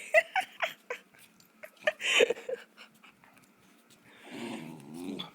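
Labrador puppy vocalizing: several short, high whines in the first second, two more around two seconds in, then a longer, lower wavering grumble near the end.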